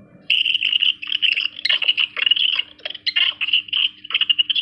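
Heavily sped-up audio: a rapid, high-pitched chatter of short squeaks, starting about a quarter second in.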